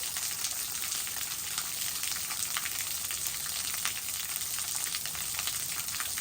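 Waterfall running: a steady hiss of falling and splashing water, full of small irregular splashes.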